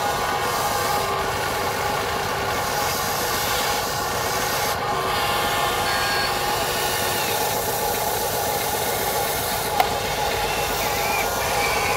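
Electric drive motors and gearboxes of a Huina 580 RC excavator whirring steadily as it swings its cab and works its boom and bucket, with one sharp click near the end.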